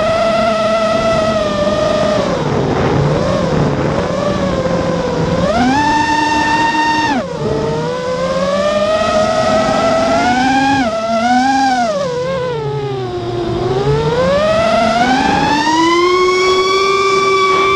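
FPV quadcopter's brushless motors whining. The pitch swings up and down with the throttle: a short high burst about six seconds in cuts off suddenly, and the pitch climbs steadily near the end. One bad motor makes the quad oscillate and adds extra noise.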